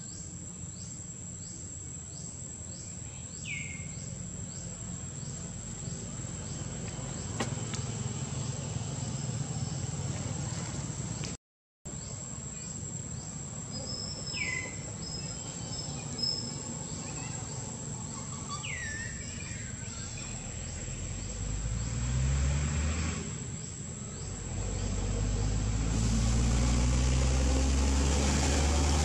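Outdoor ambience with a steady high insect drone and a few short, high, falling chirps. A motor vehicle's engine rumble rises in the last few seconds and grows loudest near the end.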